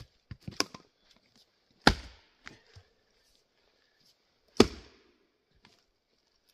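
Axe splitting tamarack firewood rounds: two hard chopping strikes into the wood about two and a half seconds apart, preceded by a few lighter knocks.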